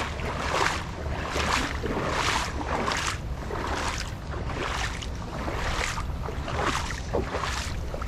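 Footsteps through a creek bed covered in fallen leaves, about two steps a second, over a low steady rumble.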